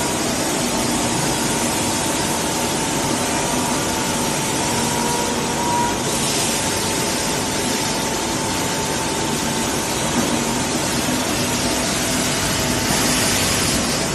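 Wide-belt veneer sanding machine running: a steady, loud whirring hiss with a constant hum underneath. The hiss turns brighter about six seconds in and again near the end.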